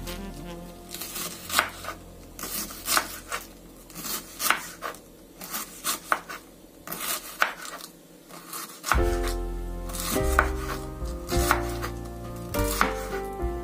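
Kitchen knife slicing red cabbage into thin shreds on a wooden cutting board, each cut ending in a crisp knock of the blade on the board, in an uneven rhythm. Background music runs under it, louder in the last few seconds.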